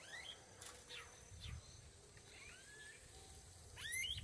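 Anis (anu birds) calling: several faint, short rising whistled calls, with a quicker run of louder calls near the end.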